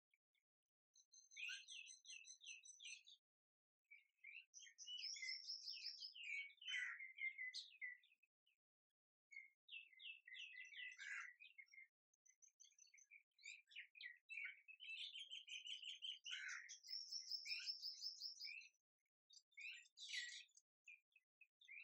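Birds chirping and singing in short, high twittering and trilling phrases, with brief pauses between them.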